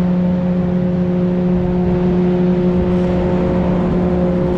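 Industrial blower fan behind an exhaust vent, running with a steady hum made of several held tones. It is suspected to be a newly upgraded, more powerful blower, perhaps ventilating or drying stored grain.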